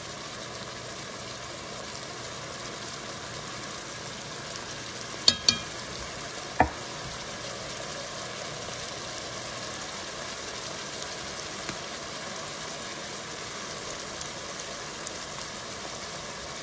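Diced carrots, onion and garlic sizzling steadily in an enameled pot. Three sharp clicks come about five to seven seconds in.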